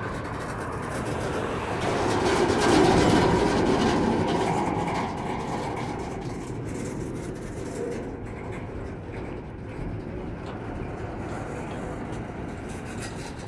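Double-stack intermodal well cars of a freight train rolling past on the rails, a steady rumble with the clicking and clatter of wheels. It swells louder about two to four seconds in, as a set of wheels passes close, then eases back.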